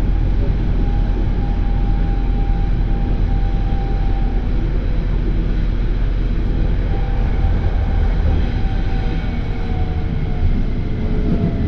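Berlin S-Bahn electric train heard from inside the carriage while running along the line: a steady low rumble with a faint whine that falls in pitch near the end.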